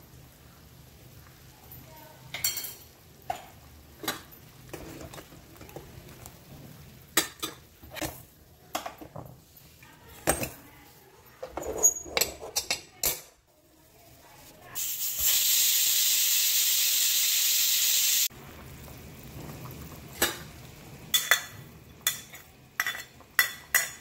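Light clinks of utensils against an aluminium pressure cooker, then, a little past the middle, a loud steady hiss of steam jetting from the cooker's vent for about three and a half seconds, cutting off sharply. A few more clinks follow near the end.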